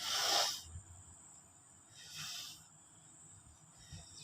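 Two forceful breathy blows of air, the first loud and about half a second long, the second softer about two seconds in: a ruqyah healer blowing after reciting.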